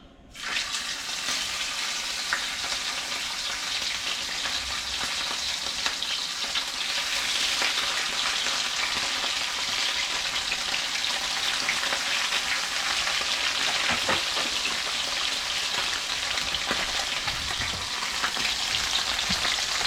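Whole bluegills frying in hot oil in a cast iron skillet: a dense, steady sizzle that starts suddenly as the fish go into the oil, with scattered sharp pops and crackles.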